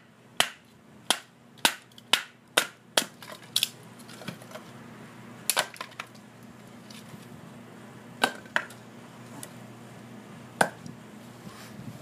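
Wooden baton striking the spine of a Gerber LMF II fixed-blade knife set into a log round, splitting it: a run of about seven sharp knocks, roughly two a second. A few single knocks follow later, further apart.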